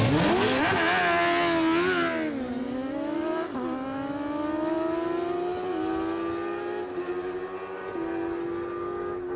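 Two sport motorcycles launching off a drag-strip start line at full throttle, engines revving up through the gears, the pitch climbing and then dropping at each of several upshifts. The sound is loudest at the launch and fades as the bikes pull away down the strip.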